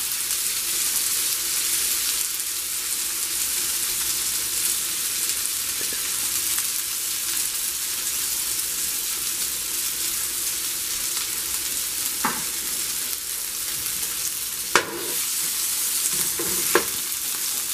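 Marinated fish slices sizzling steadily in oil on a flat iron dosa griddle, just after being flipped and given fresh oil. A steel spatula knocks against the griddle a few times near the end.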